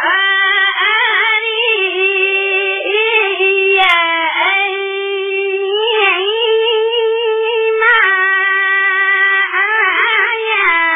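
A single high-pitched voice sings a slow melody with long, held notes that waver and bend in ornamented turns.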